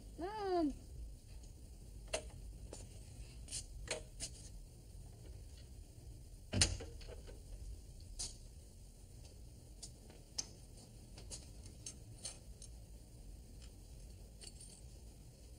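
Quiet room with a low hum: a brief wavering squeak near the start, then scattered small clicks and knocks as someone moves about and handles things, the loudest a sharp knock about six and a half seconds in.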